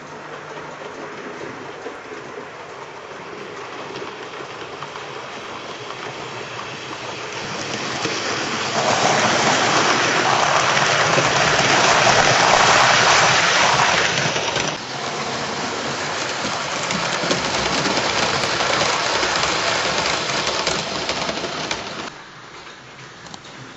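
Hornby 00 gauge Battle of Britain class 4-6-2 model locomotive and its six coaches running on the layout track: a steady rushing rattle of wheels on rail. It grows louder as the train comes close, is loudest for several seconds as it passes, eases off, then drops away sharply near the end.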